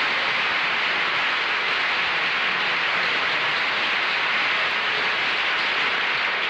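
Studio audience applauding steadily, a dense even clapping that holds at one level throughout.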